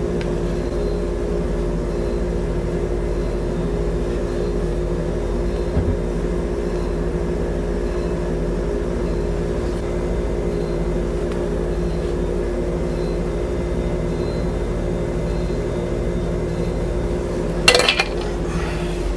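Steady low machine hum of kitchen equipment. Batter is being spooned into ceramic ramekins, with a soft knock about six seconds in and a brief clink of utensil on dish near the end.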